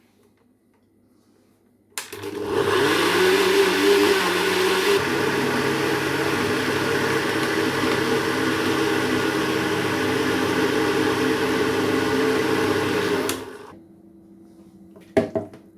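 Electric blender puréeing cooked vegetables: it switches on about two seconds in, its motor pitch rises as it speeds up, then it runs steadily for about eleven seconds before switching off. A short knock follows near the end.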